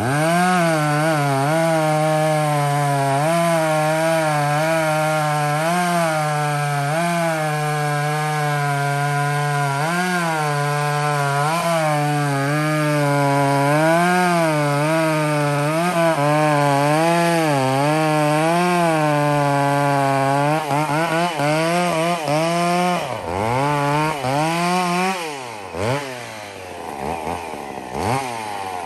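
Two-stroke chainsaw running at high revs, its pitch dipping and recovering again and again as it cuts through wood. About 21 seconds in the revs start falling and rising sharply several times as the throttle is let off and opened again.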